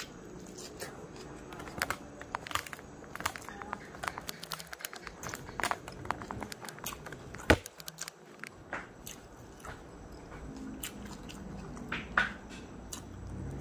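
Close-up chewing of a mouthful of food, with many short crisp crunches and crackles. A sharp loud click about seven and a half seconds in. Near the end, a short rustle of a fresh cabbage leaf being torn by hand.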